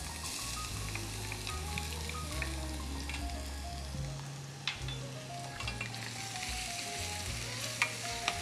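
Minced garlic sizzling in hot olive oil in a stainless steel pan, the sizzle starting sharply as the garlic goes in. A few clicks of a spatula against the pan about halfway and near the end as the garlic is stirred.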